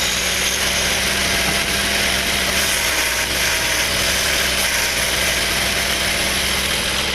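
Wood lathe running steadily: an even motor hum under a constant hiss.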